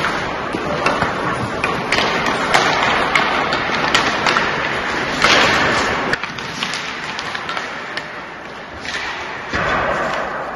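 Ice hockey sticks striking pucks and pucks knocking against the boards, a string of sharp knocks, over skate blades scraping on the ice; the activity thins out after about six seconds.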